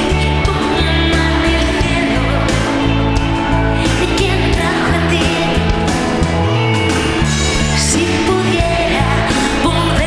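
Live pop-rock band playing with a woman singing lead, over a steady drum beat and bass line.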